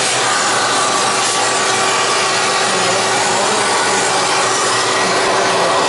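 Vacuum cleaner running steadily, a hiss with a faint steady whine, its nozzle worked around inside a Diablo disk drive to clear out dust.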